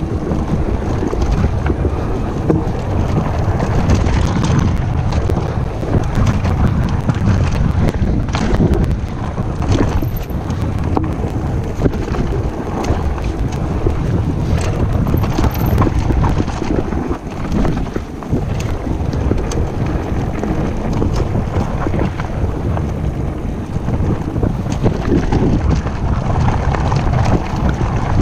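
Wind buffeting the microphone of a camera on a fast-moving electric mountain bike, with rattles and knocks from the bike running over loose rock and gravel.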